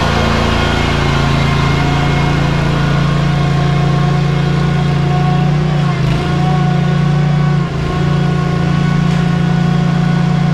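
Ready-mix concrete truck's diesel engine running steadily with a constant drone, dipping briefly twice after the middle.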